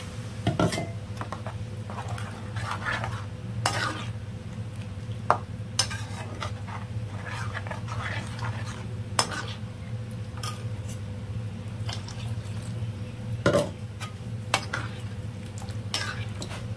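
A perforated metal ladle stirring and scraping through thin curry in a metal kadai, with scattered clinks of the ladle against the pan, as water is mixed into the fried masala paste. A steady low hum runs underneath.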